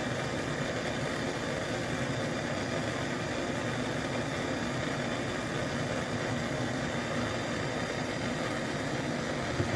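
Steady, even rushing noise of a propane torch flame burning, with no change in level.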